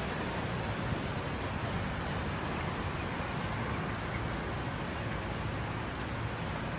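Steady outdoor background noise, an even hiss and low rumble with no distinct sounds standing out.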